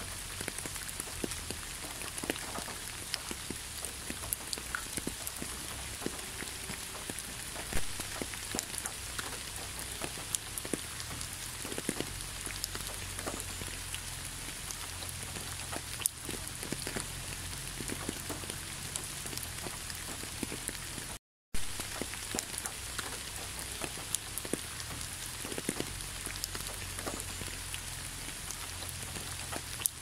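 Steady rainfall with many separate drop impacts ticking through an even hiss. It cuts out completely for a fraction of a second about two-thirds of the way through, then carries on.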